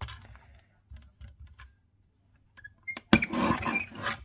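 Cardstock being cut down to size: a few faint taps and scrapes, then about three seconds in a loud scraping, rustling cut lasting about a second.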